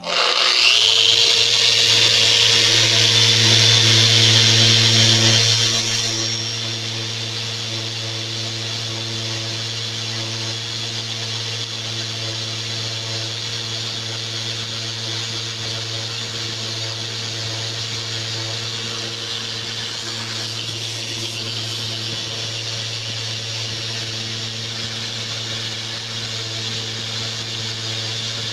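Festool electric sander starting up and running steadily while sanding old lead paint off a wooden bench, with a steady motor hum under the hiss of the abrasive. It is louder and higher-pitched for the first six seconds or so, then settles to a steadier, slightly quieter run.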